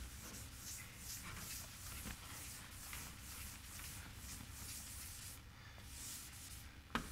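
Blackboard eraser wiped back and forth across a chalkboard: faint, rhythmic swishing strokes, about two to three a second, with a short knock near the end.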